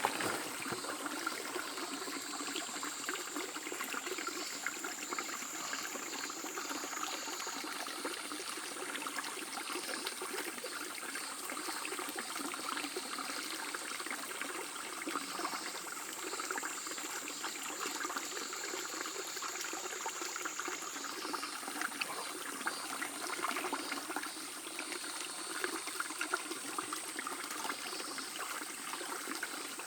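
Shallow river babbling over stones: a steady rush of running water. A faint, steady high-pitched tone sits above it, shifting slightly in pitch twice.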